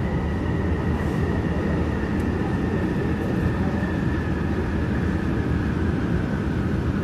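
Yongin EverLine light-rail train running, heard inside the car: a steady rumble with a thin high whine that sinks slightly in pitch and fades about halfway through as the train slows into a station.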